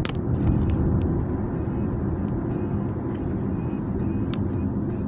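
Constant buzzing from a faulty climate-control vent actuator behind the dash screen of a 2024 Volvo XC40 Recharge, heard up close at the vent over the blower fan on its lowest setting, with scattered sharp clicks. It sounds over the steady rumble of the moving car.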